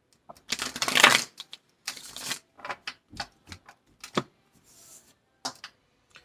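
A deck of tarot cards being shuffled by hand: a quick run of card slaps and clicks, with a dense rush of card noise about half a second in and another around two seconds, then scattered single clicks.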